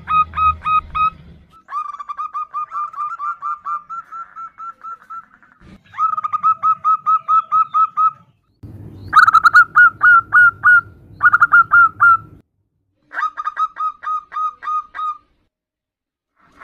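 Zebra doves (perkutut) giving rapid trains of short cooing notes, about five a second, in bursts of one to two seconds that answer one another. This is the female's call to males, used as a lure.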